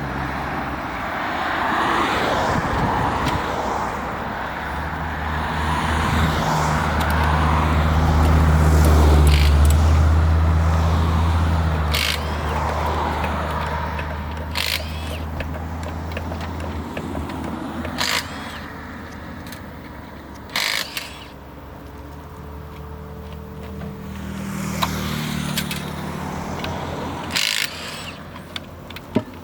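A car engine running at low, steady revs, growing louder over the first third and then fading away. Sharp clicks and knocks come now and then from about halfway in.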